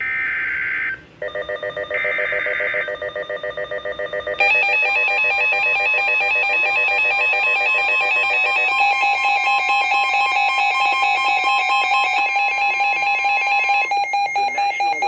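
NOAA Weather Radio emergency alert for a severe thunderstorm warning: the last digital SAME header bursts, shrill one-second data screeches a second apart, give way to a weather alert radio's fast-pulsing alarm beeps. About four seconds in, a loud steady warning alarm tone takes over and holds, its pitch pattern shifting twice, signalling the warning that follows.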